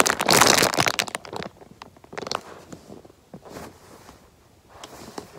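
Clear plastic squishy packaging crinkling loudly as a Pat Pat Zoo Pop Pop Sheep squishy is squeezed in its bag, for about the first second, then fainter rustles and crackles as it is handled.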